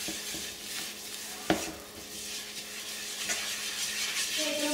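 Butter and flour sizzling in a nonstick frying pan, stirred and scraped with a silicone spatula as the roux toasts. A single sharp click comes about one and a half seconds in.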